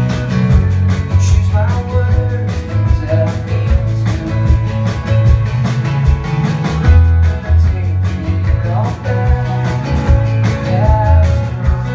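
Live indie-folk rock band playing: drums keeping a steady beat under strummed acoustic guitar, a heavy low end and electric guitars, with a lead line bending and sliding between notes a few times.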